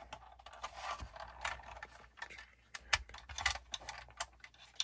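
Irregular light clicks and rattles of small plastic and metal parts being handled and fitted together, as the rear roll hoop is put back onto a model RC car's 3D-printed chassis.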